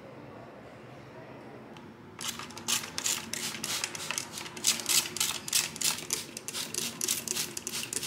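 Plastic trigger spray bottle misting water onto freshly baked mooncakes, squeezed in quick succession, about four short hissing sprays a second, starting about two seconds in. The water spray cools the mooncakes between bakes.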